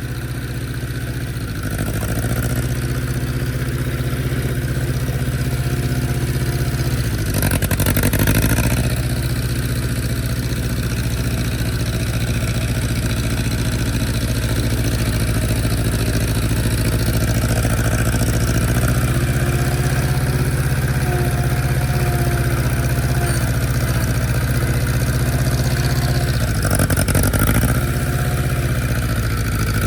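Allis-Chalmers D17 tractor engine running steadily, with a brief change in its note about eight seconds in and again near the end.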